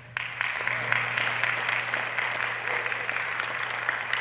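Audience applause, many people clapping at once, breaking out suddenly just after the start and holding dense and steady.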